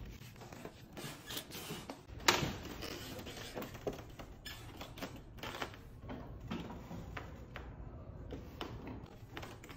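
Letterpress printing press being worked by hand: scattered mechanical clicks, creaks and knocks, with one sharper knock about two seconds in.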